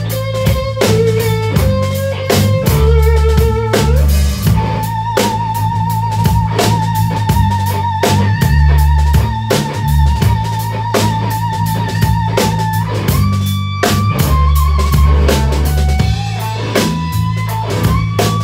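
A rock trio playing live with no singing: an electric guitar lead over a drum kit and bass guitar. The drums are heard up close. Partway in, the guitar holds one long note with vibrato for about eight seconds before the melody moves on.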